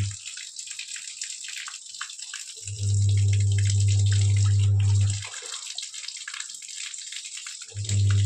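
Water running steadily from a garden hose, a continuous splashing hiss. A loud, steady low hum comes on twice, about three seconds in and again near the end, lasting about two and a half seconds each time and stopping abruptly.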